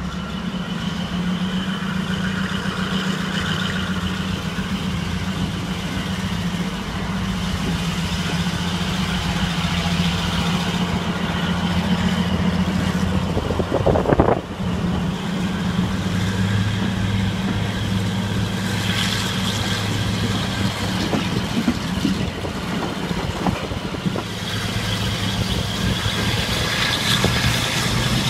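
Class 42 Warship diesel-hydraulic locomotive's engines working steadily under load, heard from an open carriage window behind it, with a brief louder rush about 14 seconds in as the train passes under a stone bridge. The engine note drops to a deeper pitch a couple of seconds later.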